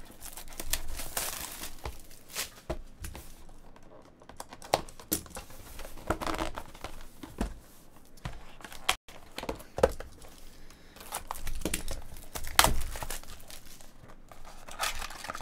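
Plastic shrink wrap being torn and crinkled off a trading-card box, with cardboard boxes handled and set down, giving irregular crackles and a few sharp knocks.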